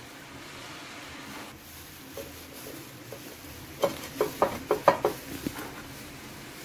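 A quick run of about six light clicks and taps from a plastic-gloved hand setting soaked ladyfinger biscuits into a cake mould, over a faint steady hiss.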